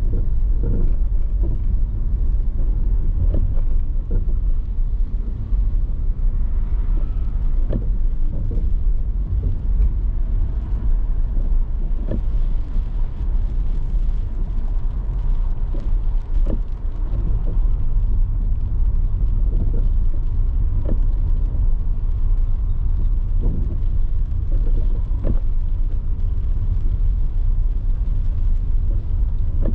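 A car driving, with a steady low rumble of road and engine noise. Brief light knocks come through now and then, irregularly.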